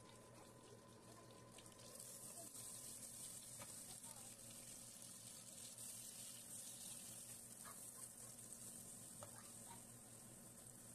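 Chopped onion, garlic, celery, carrot and red pepper sizzling faintly in oil in a nonstick pan, softening without browning. The sizzle starts about two seconds in, with a few light scrapes of the spatula.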